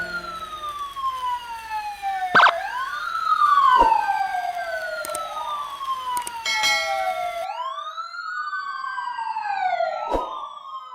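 Siren wailing: a tone that falls slowly, then sweeps quickly back up, repeating every couple of seconds, with several overlapping layers. A few sharp hits cut across it, the loudest about two seconds in.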